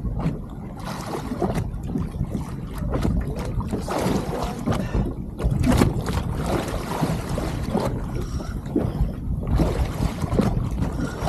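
Wind buffeting the microphone over water splashing and lapping against a small boat's hull, in uneven gusts.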